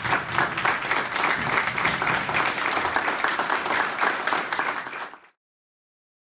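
Room of people applauding, a dense patter of many hands clapping that cuts off suddenly about five seconds in.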